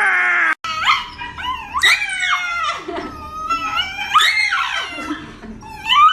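A long held cry cuts off about half a second in. A dog then howls and whines in a string of calls that slide up and down in pitch.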